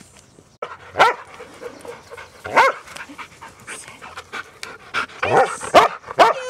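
A dog barking in short, sharp barks, about five of them spaced unevenly, as it sits begging up at its owner.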